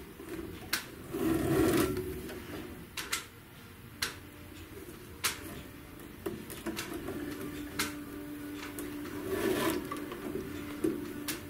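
Hand upholstery work on a wooden chair frame: scattered sharp taps and knocks, with two longer rubbing scrapes, one about a second in and one near the end.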